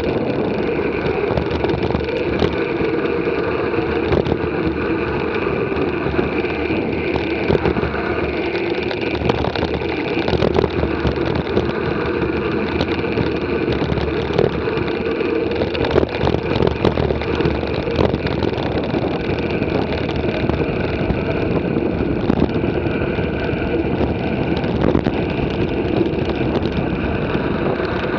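Mountain bike rolling fast over a gravel dirt track: a steady tyre rumble and hum, with a few brief knocks and rattles from the bike going over the rough surface.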